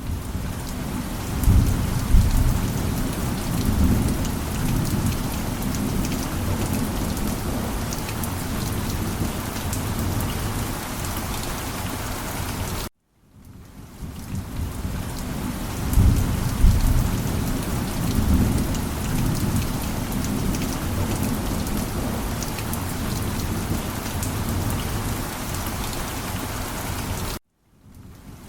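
Steady heavy rain with thunder rumbling low about two seconds in and again about halfway through. The same stretch of rain and thunder repeats, each time after a brief cut to silence, about 13 seconds in and again near the end.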